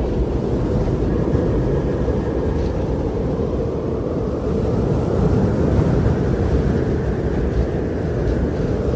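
Wind blowing steadily: a loud, low, continuous noise with no breaks.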